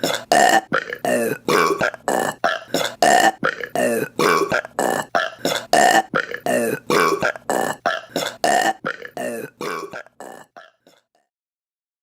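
A rapid, edited run of a woman's burps, about two a second, several of them repeated as in a remix. They thin out and stop a little before the end.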